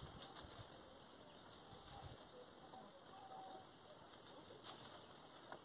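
Steady high-pitched chirring of an insect chorus, with a few faint low thuds of a hoe chopping into soft soil in the first two seconds.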